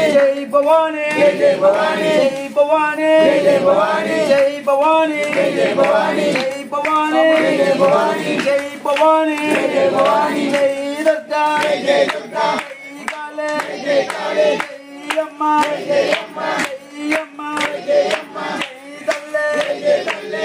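Devotional group singing led by men's voices over a steady held drone tone, with sharp percussive beats keeping an even rhythm that stand out more in the second half.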